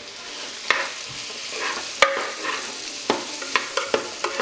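Diced apples sizzling in hot melted butter in the bowl of a Cuisinart MSC600E multicooker set to 200 °C, stirred with a spatula that scrapes and knocks against the bowl a handful of times.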